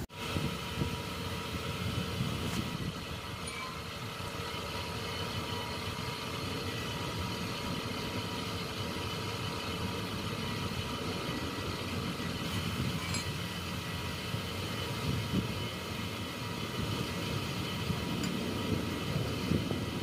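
A machine running steadily with a hum of several even tones over a low rumble, with a few sharp light clicks.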